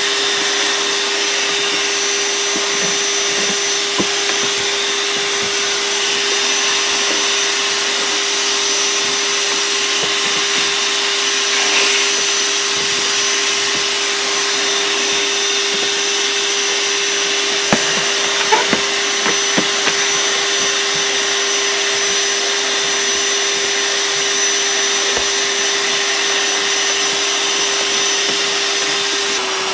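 Ryobi 18V One+ cordless shop vac running steadily as it vacuums dry leaves off boat carpet. It makes a constant whine over a rush of air, with a few brief clicks and rattles about two-thirds of the way through.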